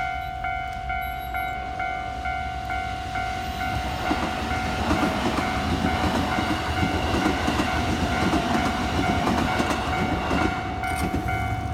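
Japanese level-crossing warning bell ringing steadily in rapid, even strikes while the barriers are down, as a JR Kyoto Line train passes through the crossing: the rumble of the train builds about four seconds in and eases off near the end.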